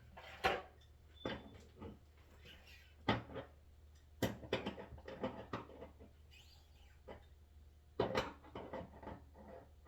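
Irregular knocks and clatters of tools and parts being handled, some single and some in quick runs, over a low steady hum.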